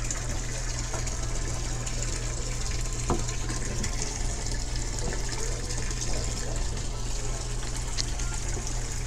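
Water running and splashing in an open fish tub as a hand net is swept through it, over a steady low hum.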